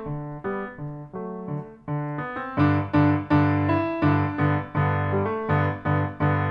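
Piano played as a solo: a melody of struck notes and chords at a steady pulse, growing louder about two and a half seconds in with heavy bass chords.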